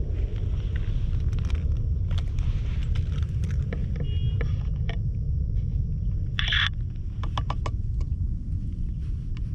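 Steady low rumble of wind buffeting an outdoor camera microphone, with scattered light clicks and a short scratchy burst about two-thirds of the way in.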